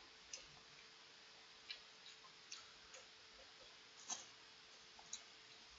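Near silence broken by faint, scattered small clicks and ticks of someone eating braised pork trotters: chewing and picking at the meat through plastic, with the loudest click about four seconds in.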